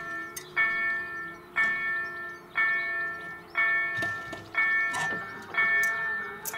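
Level-crossing warning bell from the crossing's EDG-2005 electronic sound generator and EDE-1 loudspeakers, striking about once a second, each strike ringing out and fading: the signal that the crossing is closing and the barriers are lowering.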